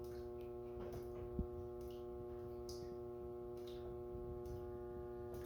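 Faint, steady electrical hum made of several even tones, with a few light ticks and one short sharp click about a second and a half in.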